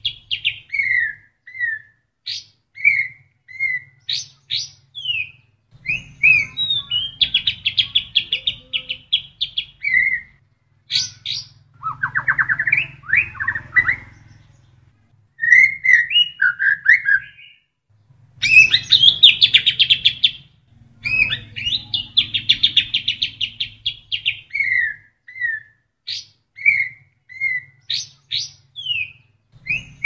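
White-rumped shama (murai batu) singing a varied, loud song of fast buzzy trills, short falling whistles and sharp high notes, broken by brief pauses. The song is filled with mimicked kapas tembak phrases.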